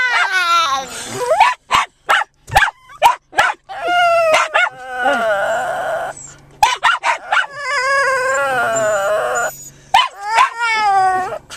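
Japanese Chin "talking": long howl-like calls whose pitch bends up and down, several in a row, his way of showing excitement. Short sharp barks from other dogs come in between.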